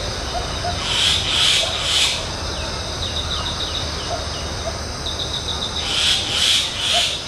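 Forest ambience: a steady high insect drone with short runs of rapid ticking, and two runs of loud rasping calls, three about a second in and four near the end, each about half a second apart.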